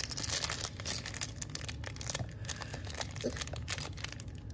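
Small clear plastic bag crinkling and crackling as fingers pull and pinch at it, trying to tear it open. The crackles come thickest in the first second or so.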